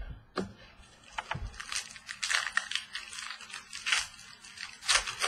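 Trading cards and pack wrappers being handled and shuffled: a quick run of rustles, clicks and crinkles.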